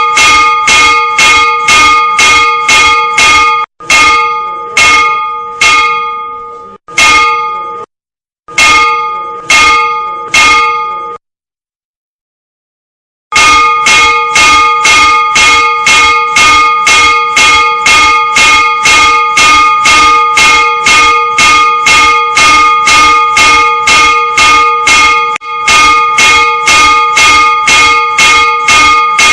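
A single church bell struck in rapid, even succession by the Pulsator automatic bell ringer, about three strikes a second. Partway through, the strikes slow to about one a second and let each ring out, with two abrupt silences, before the rapid striking resumes.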